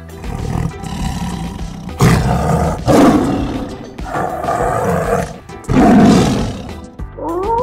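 Tiger roaring: four loud roars about a second apart, starting about two seconds in, the third one softer, over background music.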